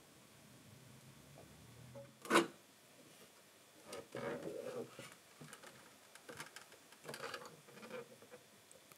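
Handling noises indoors: a single sharp knock a little over two seconds in, then irregular rubbing and light clicks as objects are handled.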